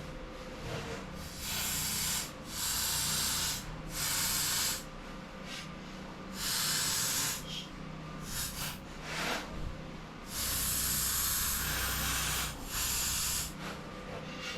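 Electric arc welding on a steel axle truss: about six bursts of loud crackling hiss, each from half a second to two seconds long, as short welds are laid with pauses between them.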